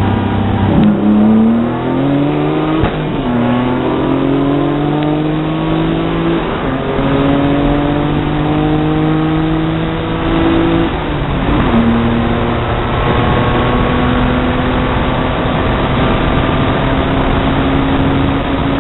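A car's engine at full throttle, heard from inside the cabin, its pitch climbing steadily through the gears. Three upshifts, about one second, three seconds and twelve seconds in, each drop the pitch before it climbs again, over road and wind noise.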